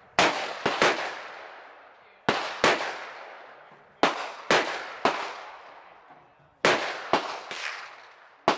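Semi-automatic AK-pattern firearm fired in 7.62×39 at an irregular pace, about eight shots, often in quick pairs, each ringing out and fading over a second or so. Fainter shots fall between the loud ones.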